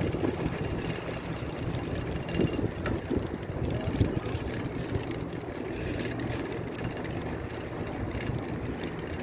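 Wind rumbling steadily on a phone microphone carried on a moving bicycle.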